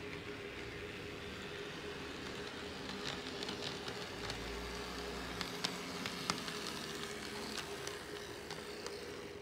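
HO scale model diesel locomotive running along the track, its wheels ticking over rail joints and turnouts, with a steady hum underneath. The ticks come mostly from a few seconds in, two of them sharper near the middle.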